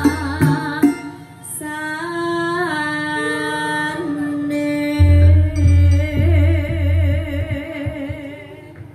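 A woman singing long notes with vibrato into a microphone over a live band with keyboard. Deep bass beats come in about five seconds in, and the music fades near the end.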